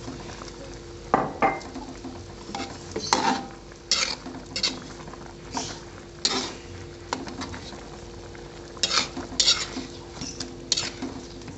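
Metal spatula scraping and clinking against a steel wok as it stirs a simmering fish stew, in irregular strokes over a faint steady hum. The loudest strokes come about a second in and again around nine seconds in.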